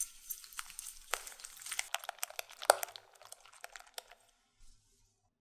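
Wire balloon whisk beating eggs and sugar in a glass bowl: rapid clicks and scrapes of the wires against the glass, dying away about four seconds in.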